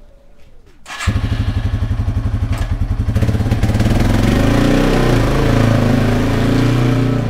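A 2021 Yamaha TW200's single-cylinder four-stroke engine is started and catches about a second in, running with an even rapid beat. From about three seconds in it revs up as the motorcycle pulls away, and the sound eases off near the end.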